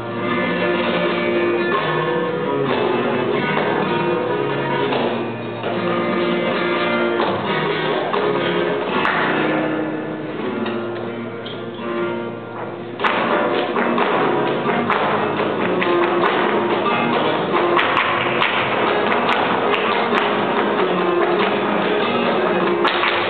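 Live flamenco: a male singer over two flamenco guitars with hand-clapping (palmas). About 13 seconds in the music suddenly becomes louder and fuller, with sharper percussive strokes.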